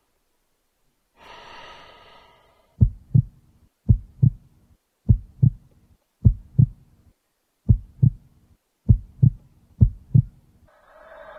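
Heartbeat sound effect: a low double thump (lub-dub) repeating about once a second, seven beats, coming a little faster near the end. Before the first beat comes a single breath about a second in. A rising sound begins just before the end, building to a jump scare.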